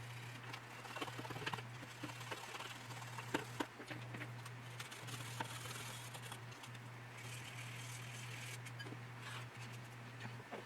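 Faint scratching, rubbing and light clicks of small plastic model parts being handled and worked with putty, over a steady low electrical hum.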